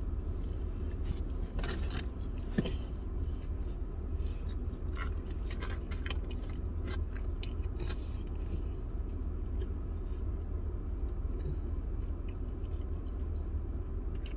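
A person chewing a mouthful of fried chicken sandwich, with scattered short wet mouth clicks and smacks, over a steady low hum.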